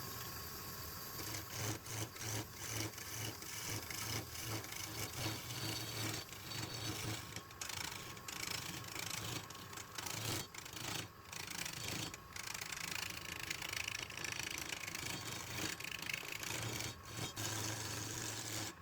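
Wood being worked on a running lathe: a turning tool or abrasive rasping steadily against the spinning wood, in irregular scratchy strokes over a low motor hum.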